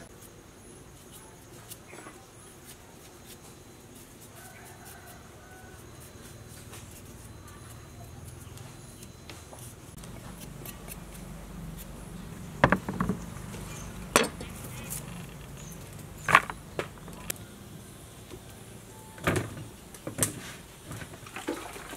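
Quiet low background, then from about halfway a handful of sharp, separate knocks and clicks of a kitchen knife and utensils at a table as ingredients are cut for cooking.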